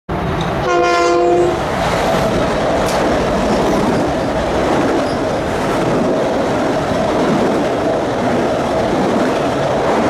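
A train horn sounds one short blast about a second in, then a train runs past loudly and steadily.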